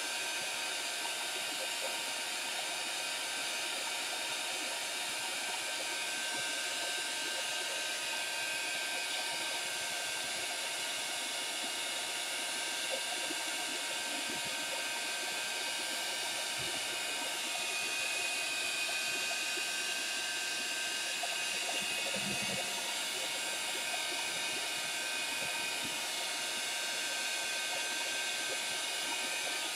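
Handheld craft heat tool blowing hot air in a steady whooshing hiss, drying wet Color Burst watercolour pigment on paper.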